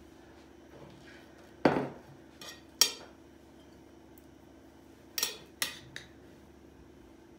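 Kitchen bowls and utensils being handled and set down on the counter: about six short clinks and knocks, two loud ones between one and three seconds in and a quick run of three near the end.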